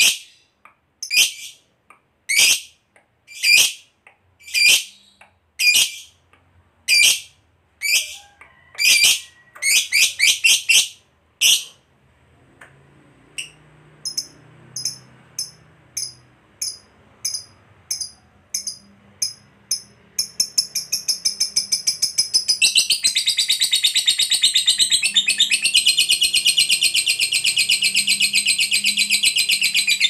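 Lovebird calling. It gives sharp single shrieks about once a second, then a quick run of them. Softer rapid chirps follow and build over the last third into a long, continuous, rapid chattering trill, the 'ngekek panjang' song.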